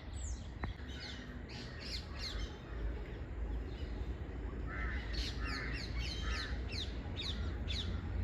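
Birds chirping outdoors, with series of quick downward-sweeping chirps, and three short, harsher calls about five to six and a half seconds in.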